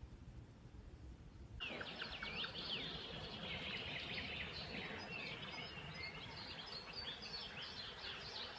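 Dawn chorus of many songbirds singing at once, dense chirps and quick whistled glides overlapping, starting abruptly about one and a half seconds in after a low rumble.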